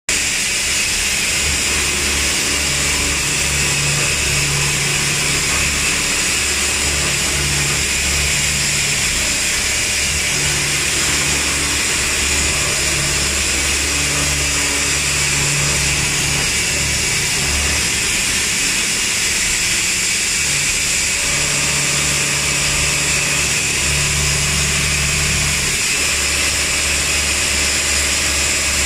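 CNC vertical machining centre milling a steel mould for melamine mugs: a steady high whine and cutting hiss from the spindle and cutter, over a low hum that cuts in and out every second or two.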